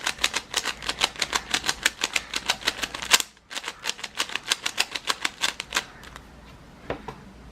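A plastic 3x3 speed cube being twisted fast by hand, its layers clicking at about seven clicks a second. The clicking comes in two runs with a short break a little after three seconds, then slows to a couple of single clicks near the end.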